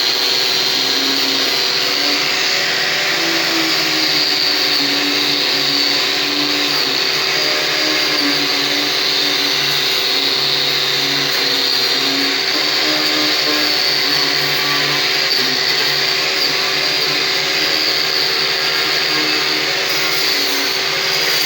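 A handheld power tool running steadily at high speed, a continuous motor whine with a strong high band and no break.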